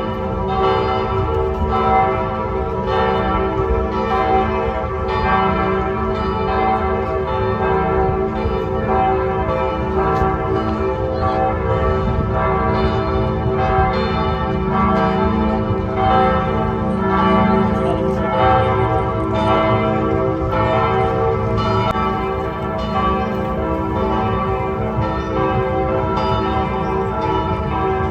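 Church bells of the Basilica of Saint Nicholas ringing together in a continuous peal, strokes coming about every second or faster and overlapping, each ringing on into the next.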